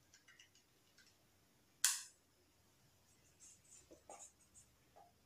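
Faint clicks of calculator keys being pressed, then one sharp click about two seconds in. Near the end come short, faint strokes of a marker writing on a whiteboard.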